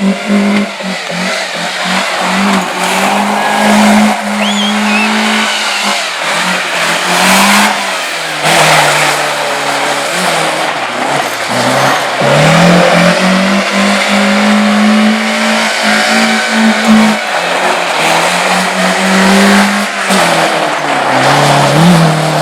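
Racing car engine running hard through a hill slalom course, its pitch dropping and climbing again several times as the car slows for the gates and accelerates away.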